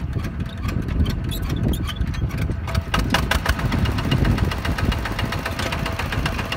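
Single-cylinder diesel engine of a two-wheel walking tractor running with a steady knocking beat. About three seconds in, its beat quickens and grows brighter as it picks up speed.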